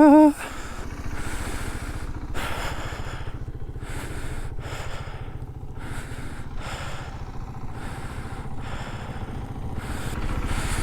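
Motorcycle engine running steadily under way, with wind and tyre noise rising and falling over it.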